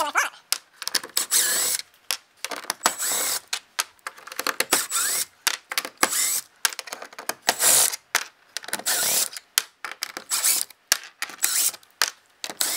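Cordless drill-driver running in repeated short bursts with brief pauses, backing screws out of a kayak's plastic rear rail.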